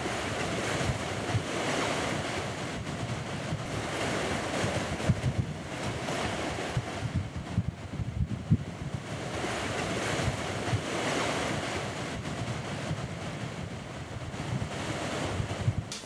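Rushing water of a fast-flowing river, a steady hiss that swells and eases every few seconds, with gusts of wind buffeting the microphone.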